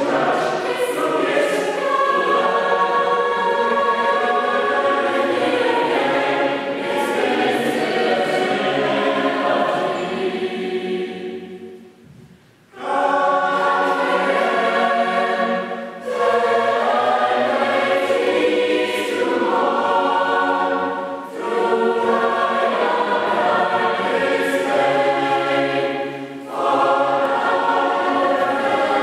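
A mixed choir of women's and men's voices singing together. About twelve seconds in the singing dies away almost to silence, then comes back in, with shorter breaks between later phrases.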